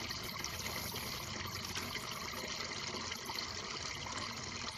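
Steady, even background hiss with no distinct knocks or handling sounds.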